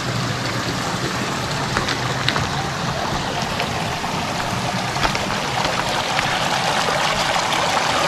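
Small mountain river running over stones: a steady rush and babble of water, with a few faint clicks.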